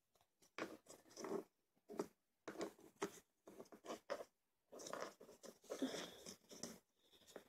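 Faint, irregular scuffing and rubbing of a craft-foam dress being pushed onto a plastic Littlest Pet Shop toy figure by hand.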